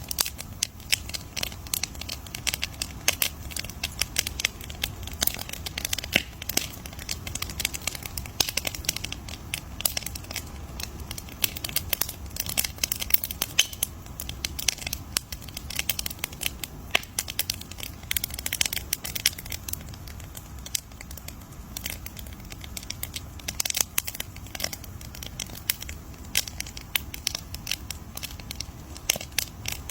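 Campfire burning with dense, irregular crackling and popping of wood over a low steady rumble of the flames.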